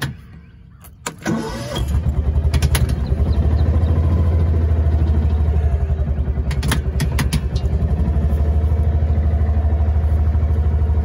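A vehicle engine is started just under two seconds in and settles into a steady, evenly pulsing idle. A sharp knock comes just before it, and a few sharp clicks around seven seconds in.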